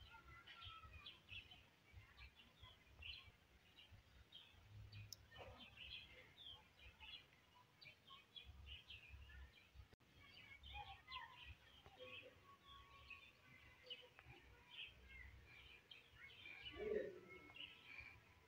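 Faint birds chirping, many short scattered calls throughout, with one sharp click about five seconds in.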